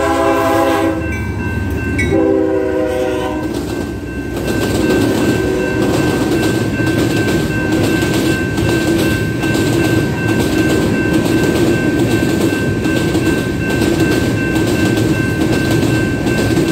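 Freight train's diesel locomotive air horn sounding a chord that ends about a second in, then a second, shorter blast about two seconds in as the locomotive passes. After that, a long string of covered hopper cars rolls by with a steady rumble and rhythmic wheel clacking.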